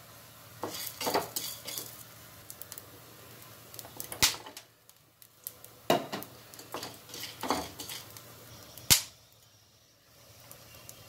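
Wooden spatula knocking and scraping against a metal kadai while stirring dry-roasting spices, dal and red chillies. The sharp clacks come every second or two, with quieter scraping and rattling of the dry grains in between.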